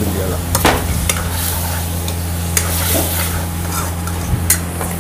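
Mutton kasa frying in a small wok, sizzling steadily while a metal ladle stirs and scrapes it, with several sharp clinks of the ladle against the pan. A steady low hum runs underneath.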